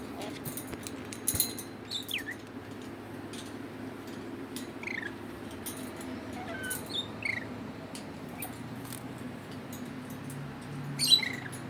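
Red lory making soft bird noises: scattered sharp clicks and several short, high squeaks that fall in pitch, cat-like mews, over a steady low hum.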